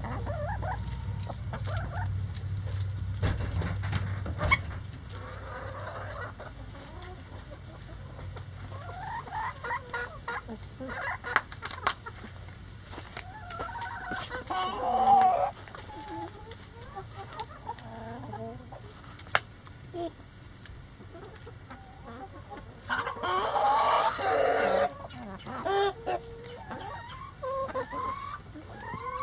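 A flock of backyard chickens, hens and roosters together, clucking and calling on and off as they peck at hanging cabbage. A louder, longer call of about two seconds comes near the end, and a few sharp taps are scattered through.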